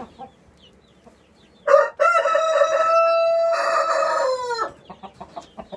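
Rooster crowing once, loud and close: a short first note, then a long steady call that breaks briefly and falls away at the end, about three seconds in all.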